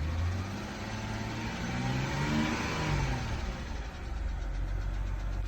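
BMW 328xi straight-six engine idling, blipped once so the pitch rises to a peak about two and a half seconds in and falls back to idle. The owner is asking whether a knock in this engine is rod knock.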